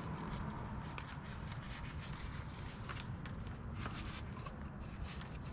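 Faint scattered clicks and rubbing from hands working the oil filter housing cap and its oiled O-ring gasket, over a steady low rumble.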